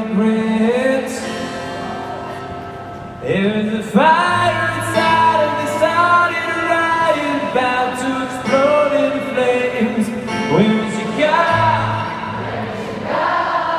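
A man singing live to his own acoustic guitar through an arena sound system, recorded from the crowd on a phone. The voice comes in strongly about three seconds in after a quieter stretch.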